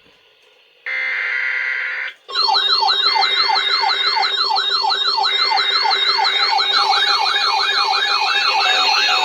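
Emergency broadcast alert signal: after a brief pause there is a short, harsh electronic burst about a second in. Then a loud, siren-like attention signal starts, made of repeating rising sweeps, about two a second, over a wavering higher tone.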